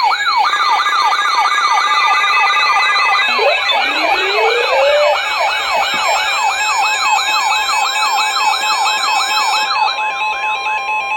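Several electronic siren sounds layered over each other: a fast yelping sweep repeating about three times a second, with steady alarm tones stacked on top and a rising sweep about four seconds in. It all cuts off suddenly at the end.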